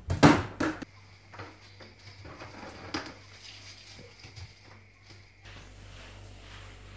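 Quick heavy footsteps thudding on a laminate floor in the first second, then quiet handling sounds: a cloth dipped in a plastic bucket and rubbed over the floor, with one sharper knock about three seconds in.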